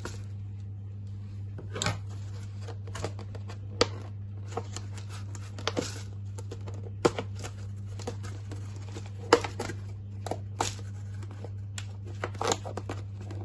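Thin plastic drinks bottle crackling and clicking irregularly as holes are poked through it near the top, over a steady low electrical hum.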